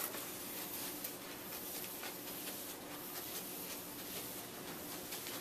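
Wet sponge mop pushed across a ceramic tile floor: a quiet, steady rubbing and scrubbing.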